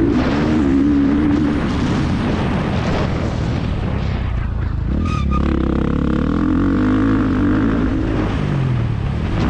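Motocross bike's engine at race pace, revving up and down as the rider works the throttle and gears. About four to five seconds in the engine note drops away briefly, then it pulls hard again, with another change of pitch near the end.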